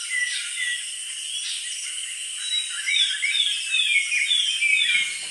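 Outdoor ambience of high-pitched animal chirps, short falling calls repeated several times a second and thickest from about halfway in, over a faint steady hiss.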